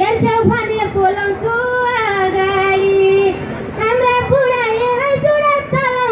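A woman singing a Nepali dohori folk song into a microphone, her voice amplified, gliding between notes and holding one long note about two seconds in.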